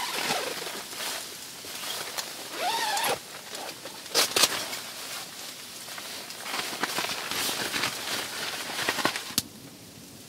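A person moving about on a packed-snow tent floor: jacket and fabric rustling, boots crunching on snow, and gear being handled with a few sharp clicks and knocks. About nine seconds in this stops abruptly, leaving only a steady soft hiss of wind.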